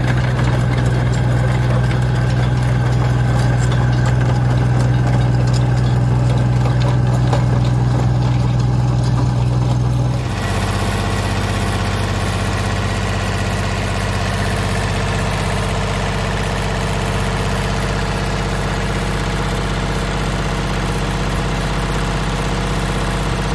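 Small diesel engine of a Hitachi HM20S-2 mini excavator running steadily. About ten seconds in the sound changes abruptly to a closer, brighter engine-bay sound with a slightly lower hum.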